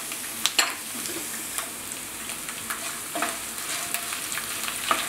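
Garlic cloves, curry leaves and ginger sizzling in hot oil in a nonstick wok, a steady frying hiss with a few sharp crackles, while a spoon stirs through the pan.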